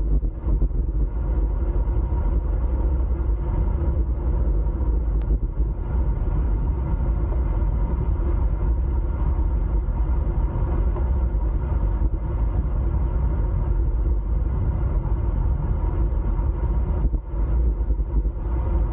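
Wind rushing over the microphone of a camera on a road bike riding at speed: a steady low rumble with a faint hiss of tyres on tarmac.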